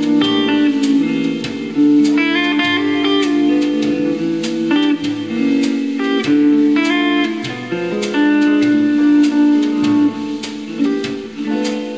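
Guitar music: plucked, slide-style notes over sustained lower tones, continuous throughout.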